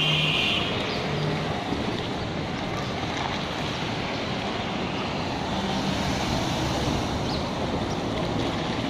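Steady outdoor street ambience: a background hum of road traffic with some wind noise on the microphone, and a brief high-pitched tone right at the start.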